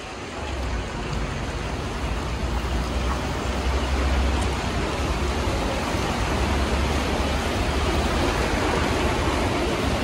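Outdoor city street noise: an even rushing hiss with a deep low rumble that builds over the first couple of seconds and then holds steady.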